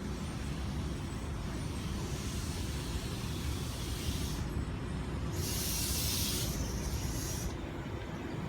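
Low, steady rumble of a train, with a high hiss that stops about four seconds in and a louder burst of hissing around six seconds in.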